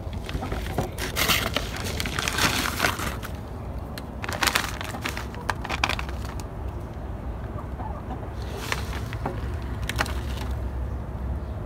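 Clear zip-top plastic bags crinkling in three bouts as hands reach in and handle succulent cuttings, with chickens clucking in the background.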